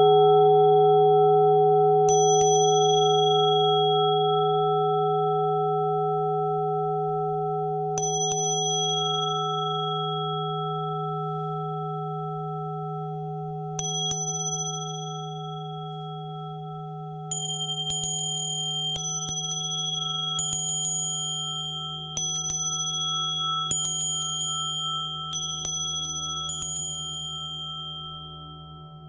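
Tibetan singing bowls ringing in long, slowly fading tones, with small high bells struck over them: a few seconds apart at first, then, from just past the middle, about every second and a half, alternating between two pitches.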